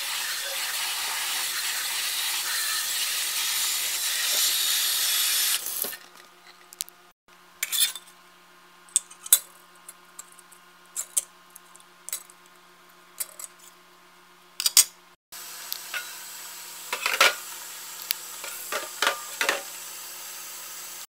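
Faucet running into a stainless steel sink of soapy water while lawn edger parts are rinsed. About seven seconds in, it gives way to scattered clicks and light knocks of a metal mesh screen handled on a countertop. About fifteen seconds in, the tap runs again, more quietly, with a few knocks of a metal part in the sink.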